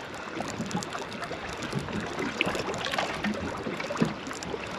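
Choppy water lapping and splashing against a small boat's hull, with scattered light clicks and knocks.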